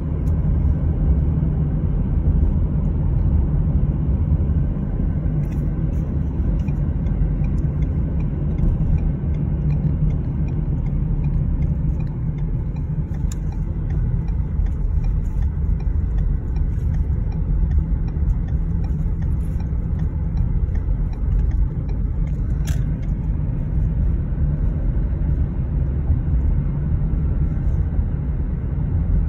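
Steady low road and engine rumble of a car driving at a constant pace, heard from inside the cabin.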